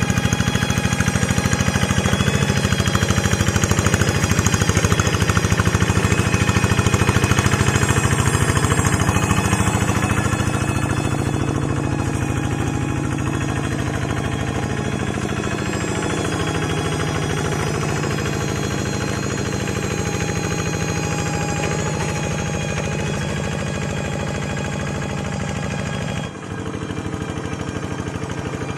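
Engine of a walk-behind hand tractor working a rice paddy, running steadily with a fast, even pulsing beat. The sound dips briefly near the end, then carries on.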